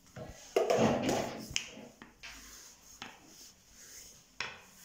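Wooden rolling pin rolling and knocking on a work surface while a thin round of gözleme dough is rolled out and lifted by hand: a scattering of sharp taps with soft rubbing between them, and a louder knock about half a second in.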